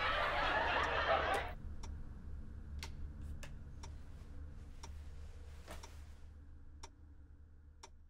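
Television sound with chuckling and chatter, cut off abruptly about a second and a half in as the set is switched off by remote. After that comes a quiet room with a low steady hum and scattered faint clicks.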